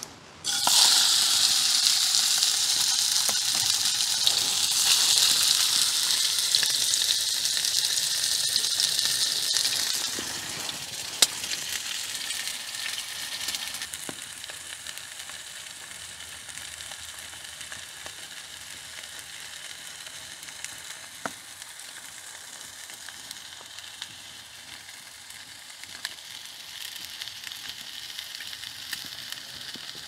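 Burger patties sizzling in a frying pan over a wood fire. The sizzle is loud for the first ten seconds, then settles to a lower steady hiss, with a single sharp crack about eleven seconds in.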